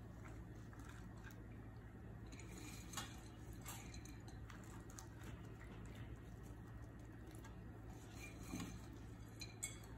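Quiet kitchen background: a low steady hum with a few light clicks and taps, the clearest about three seconds in and near the end.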